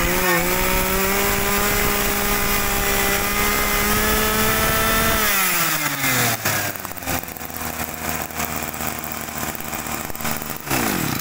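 Kioritz brush cutter's small two-stroke engine revving up and held at high speed for about five seconds, then dropping back to a steady idle, with a short rev just before the end.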